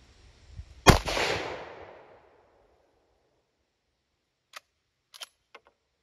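A single rifle shot from a sporterized Lee Enfield No. 1 Mk III in .303 British, about a second in, its report echoing and fading over about a second and a half. Near the end, a few short metallic clicks as the bolt is worked.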